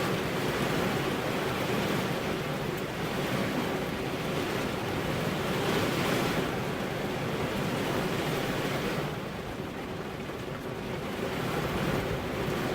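Steady rain falling on car window glass, an even wash of noise that swells briefly about halfway through and eases off for a moment later on.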